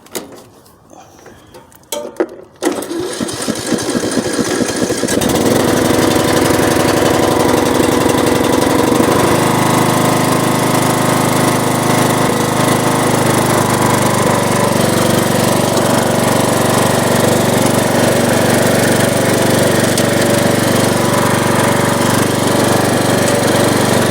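A riding lawn mower's small engine, battery-started after sitting all winter, is cranked about two and a half seconds in and catches. It then runs steadily, its note changing about nine seconds in.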